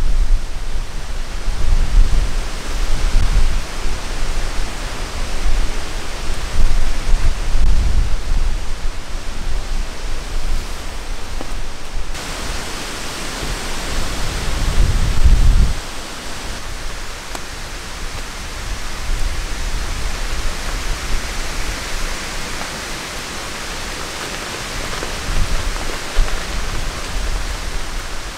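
Storm wind gusting through spruce trees, a steady loud rushing with irregular low buffeting as gusts hit the microphone, strongest in the first half and again about fifteen seconds in.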